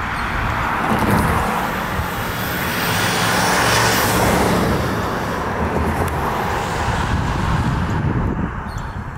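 Road traffic: a passing vehicle's noise swells to a peak about four seconds in and then eases, over steady traffic noise.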